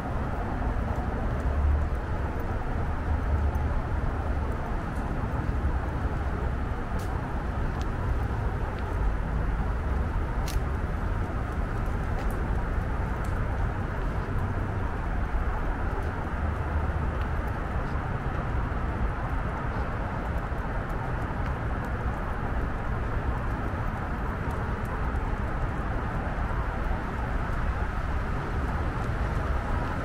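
Wind rumbling on the microphone as a steady low noise, with a few faint clicks.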